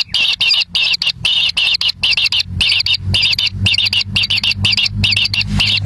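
A bird chirping rapidly and continuously, high short chirps repeated about five times a second. A low rumble joins underneath about halfway through.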